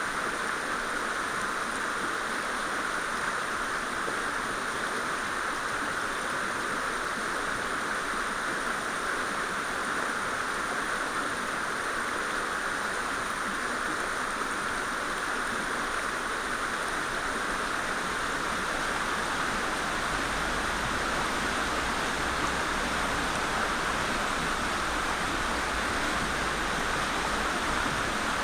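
Mountain stream rushing steadily over rocks. From about twenty seconds in, a low rumble joins underneath.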